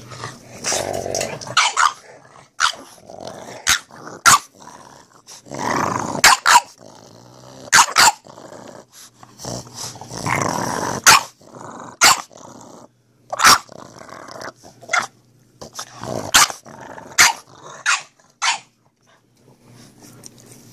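Two dogs at rough play, a Boston terrier and a large mastiff-type dog: bouts of play growling, longest around six and ten seconds in, broken by many short, sharp barks that stop a couple of seconds before the end.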